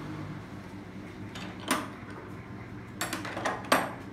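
Small metal hand tools being handled and set down: a few sharp clicks and knocks, one near the middle and a quick cluster near the end, over a steady low hum.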